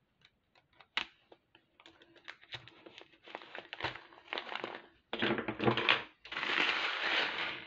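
Large clear plastic bags of glass seed beads being handled: crinkling plastic and the beads shifting inside, with small scattered clicks, a sharp tap about a second in, and denser crinkling over the last few seconds.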